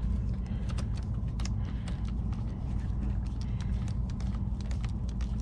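Many light, irregular clicks and ticks of a hand tool and small parts being worked on a radio-control truck, over a steady low hum.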